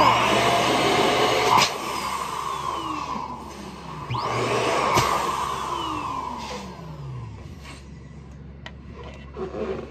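Electric balloon pump blowing up a balloon in two runs, at the start and again about four seconds in; each run stops with a click and the motor whirs down in falling pitch.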